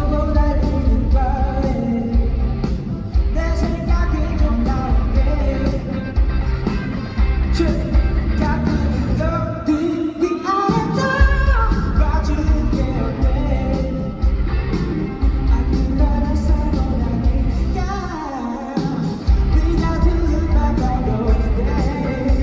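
Live pop-rock band performance: a male lead vocalist singing over bass, drums and guitar, amplified through a hall's sound system. The bass and drums drop out briefly twice, about ten seconds in and again near the end, before coming back in.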